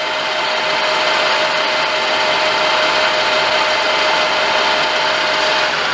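Lathe running with sandpaper held against the spinning tensile test sample, polishing it: a steady hiss with a steady whine over it. The whine stops near the end while the lathe noise goes on.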